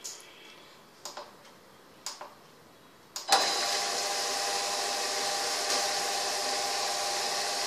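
A few short knocks and rubs as soaked millet-and-rice batter is pushed down by hand in the steel drum of a tabletop wet grinder. A little over three seconds in, the grinder starts with a sudden jolt and then runs steadily: a motor hum with the roller stone grinding the batter.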